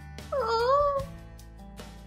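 Background music, with one short, high, wavering cry about half a second in that dips and rises in pitch and lasts about half a second.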